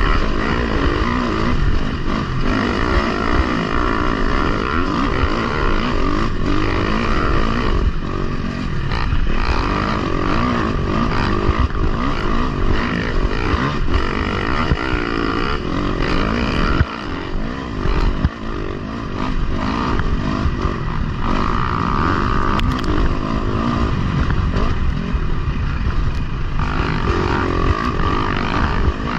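Dirt bike engines running as the bikes ride a sandy trail, the rider's own engine close by and its pitch rising and falling with the throttle. About two-thirds of the way through the engine sound drops briefly, then picks up again.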